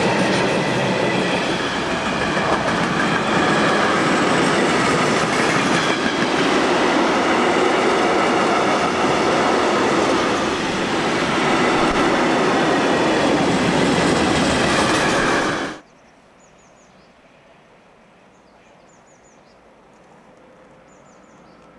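Freight train wagons rolling past at speed: a steady loud rumble and clatter of wheels on the rails, with faint steady whining tones through it. It cuts off abruptly about 16 seconds in, leaving quiet with faint high chirps.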